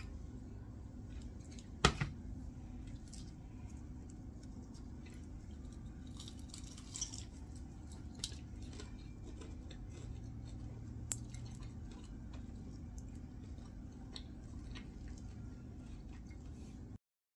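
Quiet kitchen room tone with a steady low hum. A single sharp knock about two seconds in, as the wooden bowl of fried chicken is set down on the countertop, and a few faint clicks and rustles as the chicken is handled. The sound cuts off just before the end.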